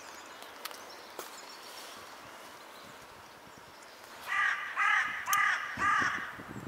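A crow cawing four times in quick succession, starting about four seconds in, over faint outdoor background noise.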